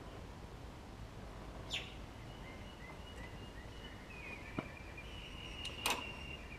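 Quiet background hum with three light clicks or taps, the loudest near the end, and faint high whistling tones in between.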